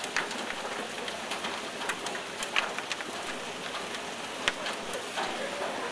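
Hailstones pelting the ground in a hailstorm: a dense, steady patter of many small hits, with a few sharper, louder strikes scattered through.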